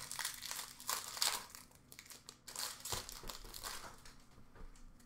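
Hockey trading cards being handled and flipped through by hand, an irregular crinkling rustle of cards sliding against each other with small taps.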